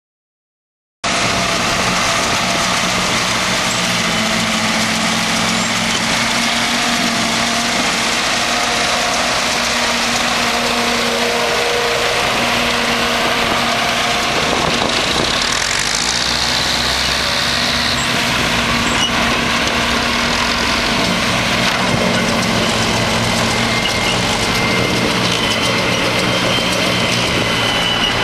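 Tractor engine and a trailed precision-chop forage harvester running steadily while chopping grass for silage, starting abruptly about a second in.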